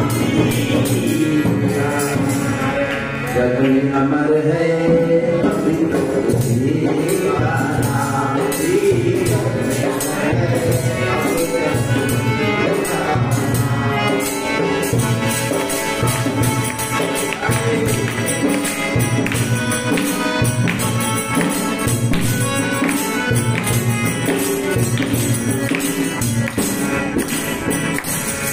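Harmonium playing a devotional bhajan melody over a steady hand-percussion beat with jingles, with a sung, gliding vocal phrase in the first several seconds that then gives way to the instrumental interlude.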